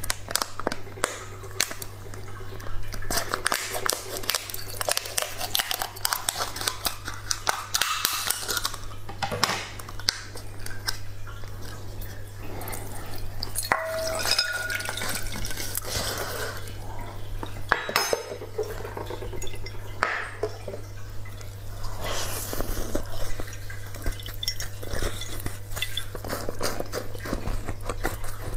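Scissors snipping through a frozen plastic water bottle and the plastic crackling as it is peeled off a block of slushy ice, with ice clinking and dripping against a glass bowl; near the end, a bite into the ice.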